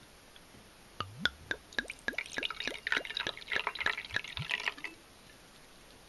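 Sake poured from a glass bottle into a small ceramic cup, glugging and splashing from about a second in for nearly four seconds.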